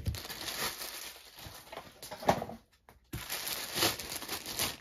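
Clear plastic packaging bag crinkling and rustling as a bagged toy figure part is handled, with a short pause a little past halfway.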